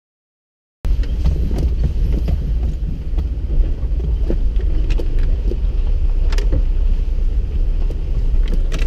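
A vehicle driving along a rough dirt track, starting about a second in: a loud, steady low rumble of engine and road with scattered rattles and knocks.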